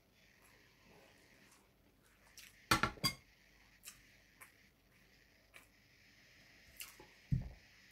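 Dishes clinking: a ceramic bowl with a spoon in it set down on a steel plate, a quick cluster of clinks about three seconds in, with a few lighter ticks of tableware after. A dull thump near the end.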